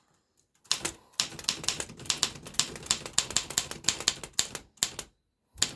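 1923 Underwood manual typewriter being typed on: a quick run of keystrokes, about five a second, starting about a second in, with a brief pause near the end.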